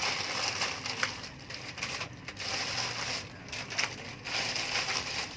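Close-up chewing and crunching of food, irregular crackly crunches broken by short pauses.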